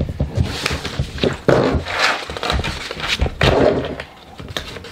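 Pencils being handed out and passed along a table: a run of sharp clicks and knocks with bits of rustling handling noise.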